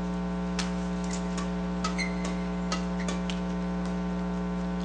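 Steady electrical mains hum with a stack of buzzing overtones on the broadcast sound, with faint scattered clicks and a brief high squeak about two seconds in.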